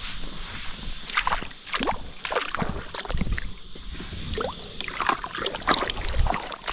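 Shallow river water sloshing and splashing as a hand works in it and lifts a plastic bottle trap for poddy mullet, with water running and dripping back down in irregular splashes.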